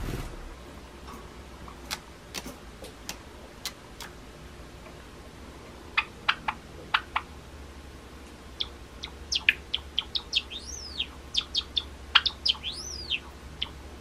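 Male Java sparrow singing: a few sharp clicking notes, then some chirps, then a fast run of clicks mixed with high whistled notes that rise and fall, filling the second half.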